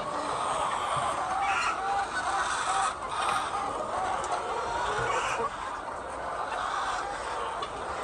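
A large flock of white laying hens clucking, many overlapping calls forming a steady chorus.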